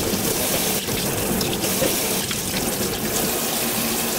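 Kitchen faucet running steadily into a stainless steel sink, the stream splashing over hands and a paintbrush being rinsed.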